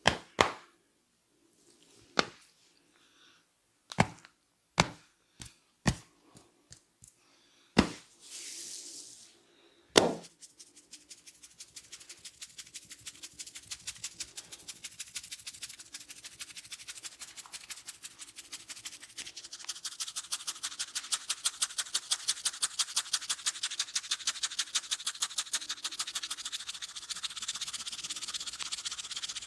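Hands working a person's head in a massage: about ten sharp smacks spread over the first ten seconds, with a brief hissing rub just before the last and loudest one. Then comes a fast, even patter of hand taps, several a second, which grows louder about twenty seconds in.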